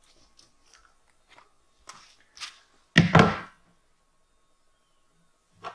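A long level set down across the rim of a plastic septic tank riser with a thunk about three seconds in, after a few faint taps, and a shorter knock near the end. The level is laid on to check that the tank sits level.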